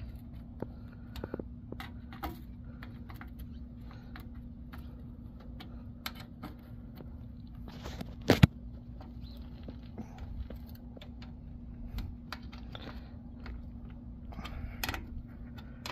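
Light, scattered metallic clicks and taps as the bolts on a fuel pump's mounting plate are threaded in hand tight, crisscross, with one sharp click about eight seconds in. A steady faint hum runs underneath.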